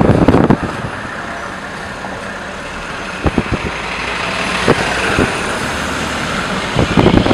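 A city bus running close by in street traffic, its engine and road noise building over a few seconds as it draws alongside.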